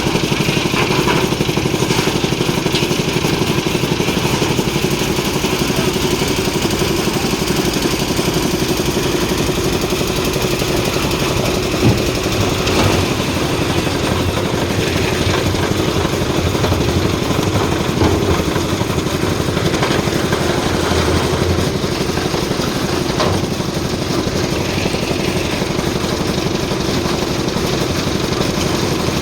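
Engine of a concrete mixer and lift machine running steadily under load, with a brief knock about twelve seconds in and another about eighteen seconds in.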